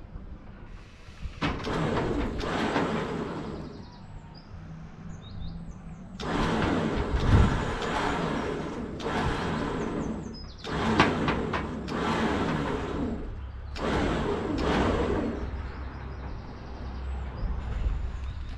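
A Hillman Imp being winched out of a garage on a cable: the winch pulls in about six short bursts of one to three seconds each, with pauses between, over a steady low hum.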